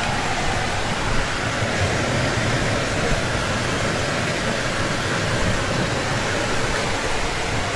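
Fast-flowing river rushing through a rocky gorge, a steady, even roar of water.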